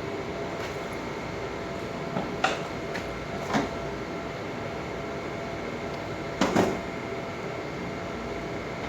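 A few short knocks and clicks, the last and loudest a double knock about six and a half seconds in, over a steady low hum.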